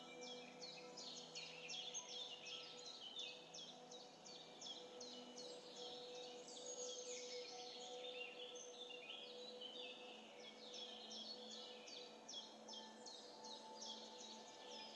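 Faint birdsong: a dense, continuous run of quick, high, falling chirps, several a second, over soft steady background tones.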